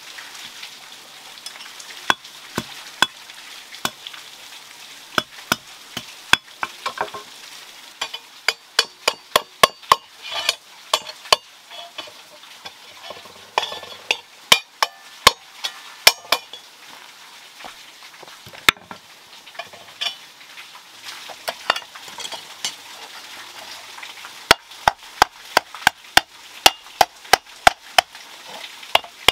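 Hand hammer striking hot iron on a hand-forged iron pan resting on a stone anvil: sharp, ringing metal blows, irregular and in bunches, settling into a steady beat of about two blows a second near the end.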